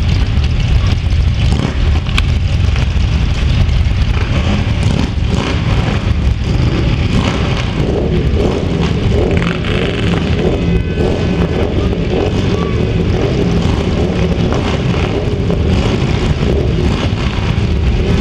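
Dozens of motorcycles, many of them Harley-Davidsons, running together in a loud, steady, deep rumble.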